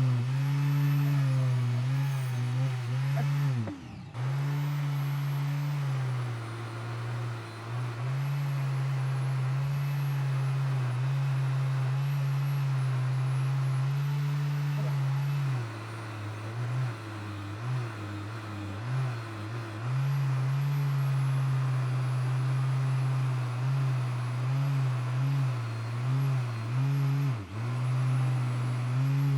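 Small electric air pump's motor running with a steady hum. It briefly winds down and starts again about four seconds in, and dips unevenly a few times later.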